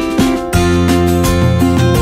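Background music with strummed acoustic guitar, growing fuller and louder about half a second in.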